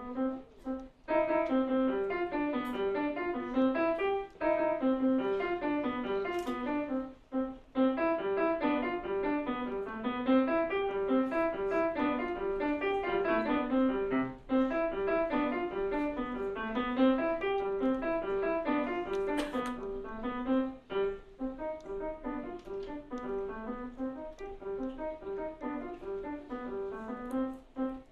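Grand piano played solo: a lively run of quick notes, mostly in the middle range, broken by a few brief pauses.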